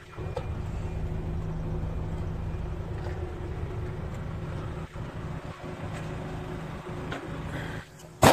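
Hyundai Terracan JX250's 2.5-litre turbodiesel idling, a steady low hum heard from inside the cabin. A single loud sharp thump comes near the end.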